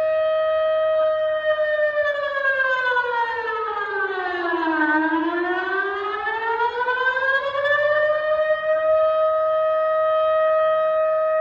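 Civil defence warning siren sounding in a test run: a steady tone that slides down about an octave over a few seconds, climbs back up, and holds steady again.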